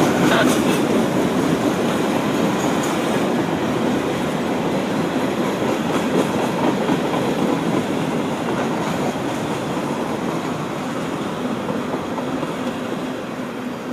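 Norfolk Southern freight train rolling past, wheels clattering over the rail joints, the sound slowly fading.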